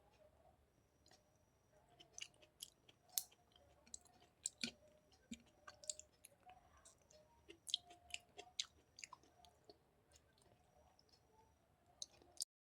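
A person chewing food close to the microphone, with irregular sharp wet mouth clicks and smacks.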